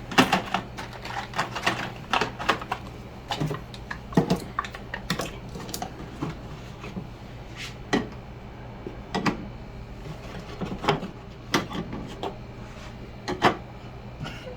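Irregular clicks, knocks and light clatter of snacks, drinks and other items being handled and set into a mini fridge's plastic shelves and door bins, over a low steady hum.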